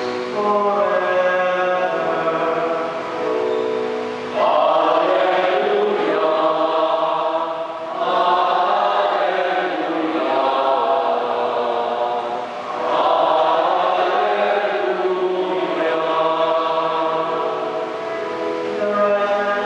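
Church choir singing a liturgical chant in phrases about four seconds long.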